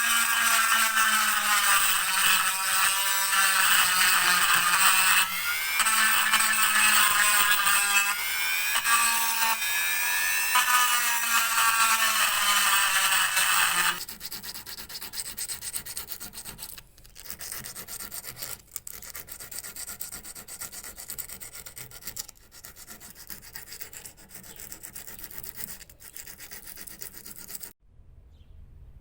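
Restoration workshop noise: a loud pitched whine whose pitch wavers up and down for about fourteen seconds, then quieter steady rubbing and scraping that stops abruptly near the end.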